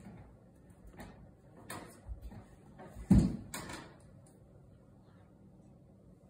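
A few short knocks and clatters, with one louder thump about three seconds in, then low room noise.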